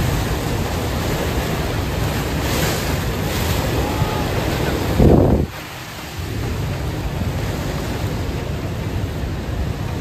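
Steady rushing roar of the Rhine Falls' water, with wind buffeting the microphone. About five seconds in there is a brief louder burst, then the sound drops for about half a second before it resumes.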